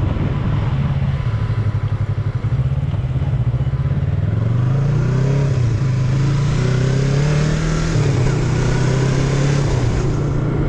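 Motorcycle engine running as the bike is ridden: steady at first, then from about four seconds in the pitch rises as it speeds up, dropping briefly near eight seconds at a gear change before rising again. A rushing wind noise grows with the speed.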